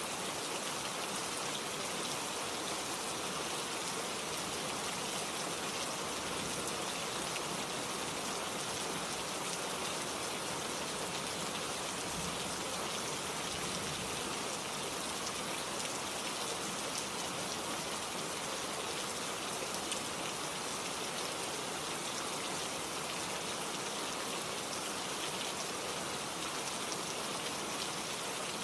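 Steady rain falling, a dense even hiss of many small drops.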